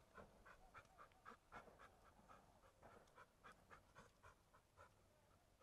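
Cocker spaniel panting quickly and faintly, about three to four breaths a second, trailing off near the end.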